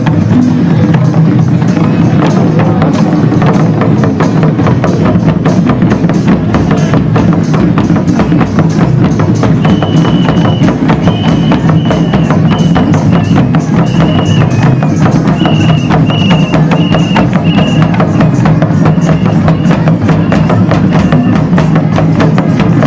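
Santhali barrel drums (tumdak') played by hand in a fast, steady, dense rhythm for a line dance. From about ten seconds in until near the end, a line of short high piping notes plays above the drumming.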